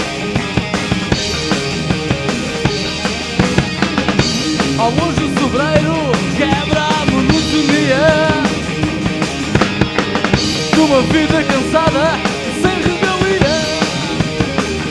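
Rock band playing live: a drum kit keeps a fast, steady beat under electric guitar. About four and a half seconds in, a lead melody with bending, wavering pitch comes in over it.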